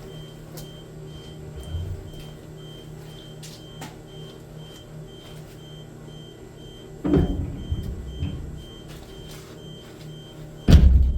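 Steady low machinery hum with faint scattered clicks, broken by two loud thumps: one about seven seconds in and one near the end.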